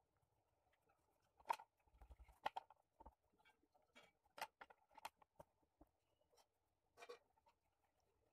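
Faint, irregular short scratches of a graphite pencil sketching on paper, a few strokes a second with pauses between them.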